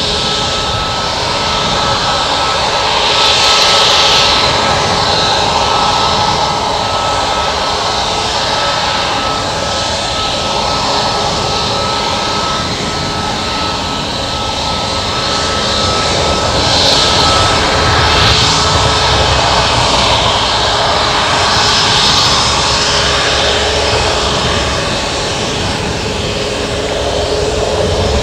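Boeing 737 MAX 8's CFM LEAP-1B turbofan engines at taxi power: a steady jet whine over a rushing hiss that swells and eases a few times as the airliner taxis and turns.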